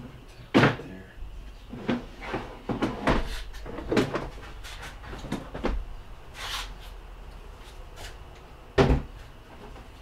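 Plastic trim panels and their clips being pulled off and handled on a Tesla Model Y. A sharp knock comes about half a second in and another near the end, with lighter clicks and clatter in between.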